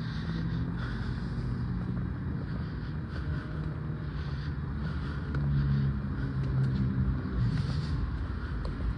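Motor vehicle engine running with a low steady hum, swelling louder for a couple of seconds past the middle.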